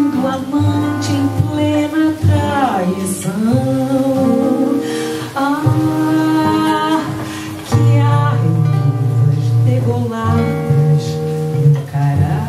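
A woman singing a Brazilian song, with sustained notes that slide between pitches, accompanied by a nylon-string acoustic guitar, performed live.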